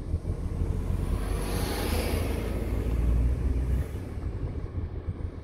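Road and engine rumble of a moving car heard from inside, with an oncoming truck passing in a rushing swell that rises and fades about two seconds in.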